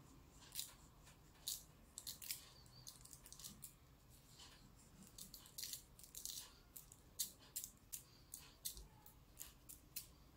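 Pinches of salt taken from a plate and sprinkled by hand over tomato slices in a glass baking dish: faint, irregular crisp ticks and crackles of salt grains, a couple of dozen over several seconds.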